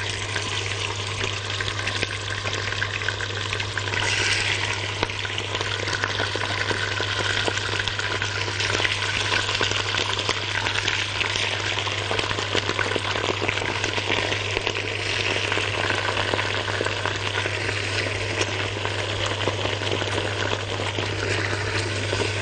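Raw chicken pieces frying in very hot ghee and oil in a pot: a steady sizzle full of fine crackling as the pieces are laid in to brown.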